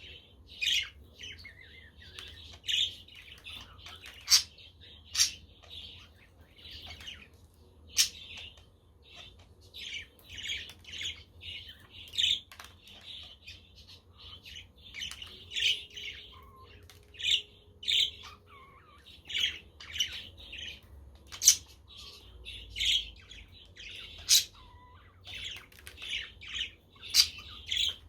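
A group of budgerigars chirping and chattering continuously, with sharp, loud squawks every second or two.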